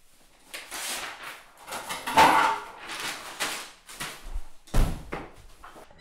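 Quick swishing and rustling handling sounds as canvases are put on and pulled off an aluminium studio easel, several in a row and loudest about two seconds in, followed by a sharp thud near the end.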